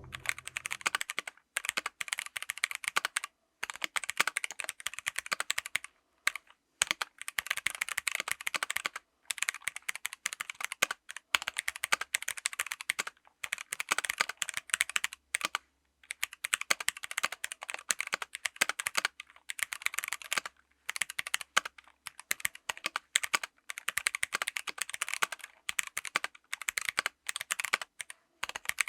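Typing on a mechanical keyboard with stock Kailh BOX Brown tactile switches: quick runs of clacking keystrokes, broken by short pauses every few seconds.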